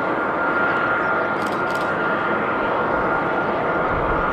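Steady airliner jet noise: a rushing hiss with a constant high whine running unchanged.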